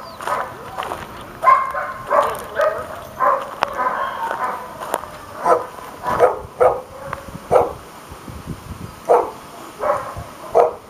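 A dog barking repeatedly: about a dozen short barks at irregular intervals.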